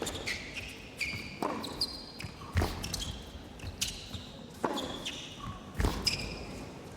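Tennis rally on an indoor hard court: a series of sharp ball strikes and bounces echoing in the hall, with high-pitched squeaks of players' shoes on the court between them.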